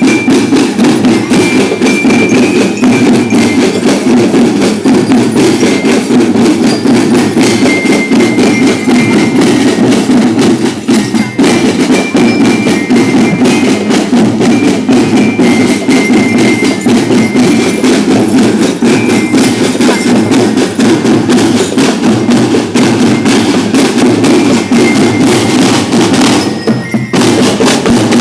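School drum band playing a march: fast, dense drum strokes with a glockenspiel (bell lyra) melody of short high notes over them.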